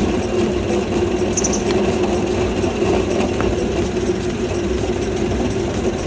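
Suzuki Wagon R running, a steady mechanical hum from the drivetrain and the exposed wheel hub. It is the abnormal noise being traced, which the owner puts down to something rubbing and then to a failed hub bearing.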